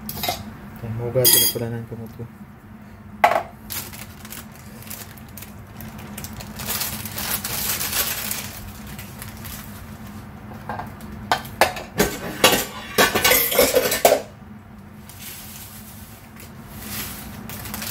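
A metal spoon scraping and tapping a tin can of tomato sauce over a frying pan, then scattered clinks of dishes and utensils being handled, thickest in a run of clinks about two-thirds of the way through. A faint steady low hum runs underneath.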